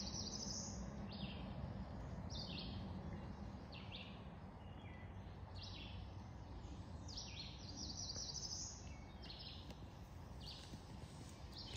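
Songbirds singing a steady string of short, high chirping phrases over a low rumble of wind.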